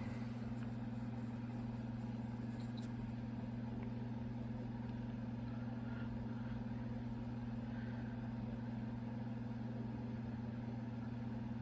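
Steady low hum of background noise, unchanging, with no distinct events.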